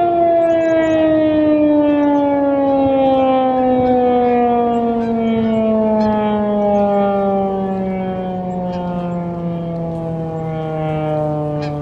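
ASC Tempest T-128 outdoor warning siren winding down: its two-note chord falls slowly and steadily in pitch, growing slightly softer toward the end.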